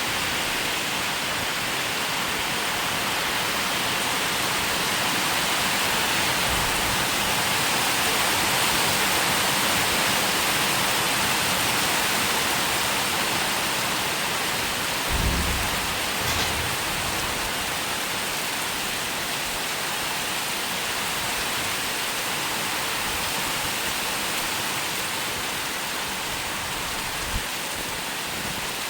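Steady rain falling, an even hiss. A brief low thump about halfway through.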